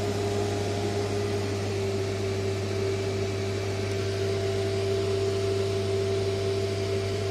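Steady hum of running plant-room equipment: a strong low hum with a fainter steady higher tone over a hiss, unchanging throughout.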